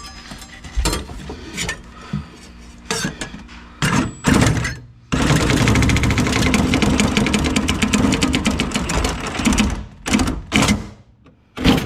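Power cutting tool running in a rapid, even chatter for about five seconds, cutting through the urethane bead that holds a 2012 Mustang's window glass. Scattered knocks and clunks come before and after it.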